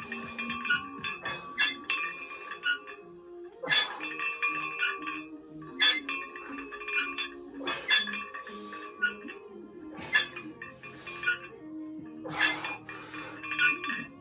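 Weight plates clinking and ringing on a plate-loaded EZ curl bar with each curl rep, one strike about every two seconds, the strikes spacing out a little toward the end. Background music plays underneath.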